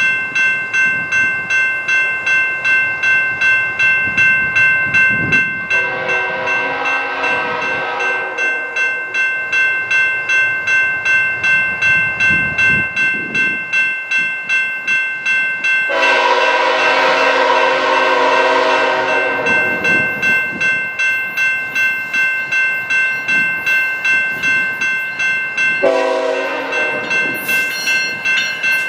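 A grade-crossing bell ringing about twice a second while an approaching CSX freight train's locomotive air horn sounds the crossing signal: a long blast about six seconds in, a longer one about sixteen seconds in, and a short one near the end.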